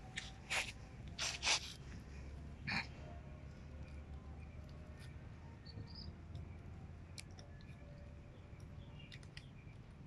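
Plastic puzzle cube being twisted in the hands: a few short scraping clacks of the layers turning in the first three seconds, then only faint clicks.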